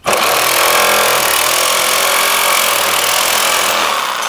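Power saw cutting through an old deck board. It starts at full volume, holds steady for about four seconds, then winds down near the end.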